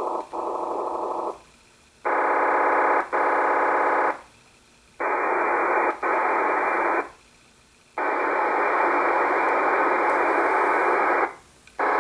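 Icom IC-R8500 receiver scanning VHF in FM, stopping on digital radio signals. Each signal is a harsh, buzzy burst of a second or three, with short silences between as the squelch closes and the scanner steps to the next frequency.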